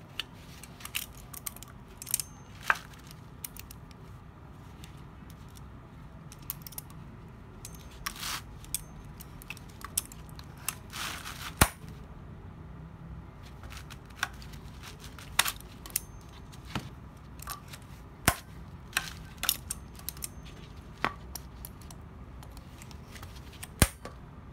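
C.H. Hanson self-adjusting locking long-reach C-clamp worked by hand: irregular sharp metallic clicks and snaps as its locking handle is squeezed shut and released, clamping and unclamping blocks of wood.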